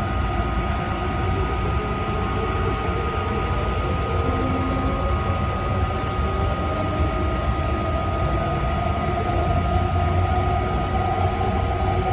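Taichung MRT Green Line metro train running along the track: a steady rumble of wheels on rail with several constant high tones over it, and a mid-pitched hum growing stronger about halfway through.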